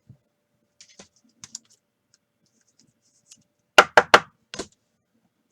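Trading cards being handled and sorted by hand: faint taps and ticks, then a quick run of four sharp clicks about four seconds in.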